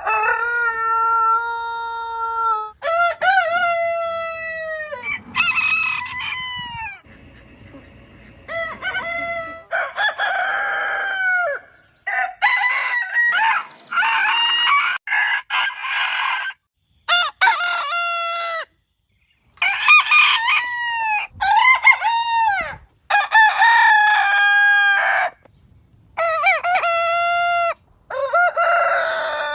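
Roosters crowing one after another, more than a dozen crows in a row, some higher-pitched and some lower, several cutting off suddenly.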